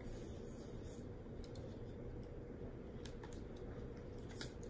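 Quiet room tone with a low hum and a few faint clicks and taps from handling and turning the stiff cardboard page of a board book.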